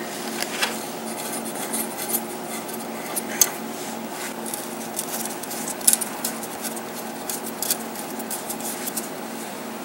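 Small, irregular metallic clicks and rubbing as a ground wire's ring terminal is fastened under a bolt in a car's engine bay, turned by hand and then with a tool. A steady low hum runs underneath.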